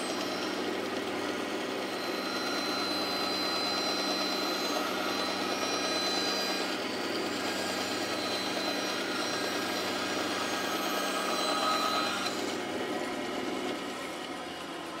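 Bandsaw cutting a curved wooden board lengthwise, a steady sawing sound with a faint whine as the board is fed through. About twelve seconds in the blade comes out of the wood and the saw runs on free, quieter.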